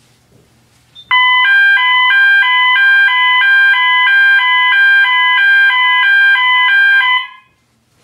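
Building fire alarm sounding during a test: a loud electronic signal alternating between two high chords several times a second. It starts abruptly about a second in and stops after about six seconds.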